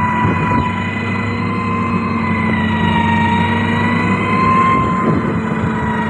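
SANY STG190C-8S motor grader's diesel engine running steadily under load while pushing clay and rock, with a steady high whine over the low engine rumble that wavers slightly in pitch.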